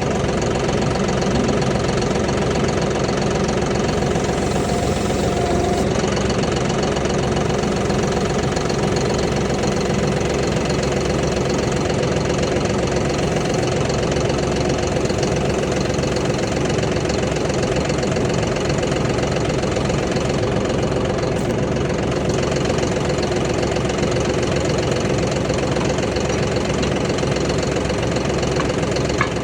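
John Deere 5075E tractor's diesel engine idling steadily.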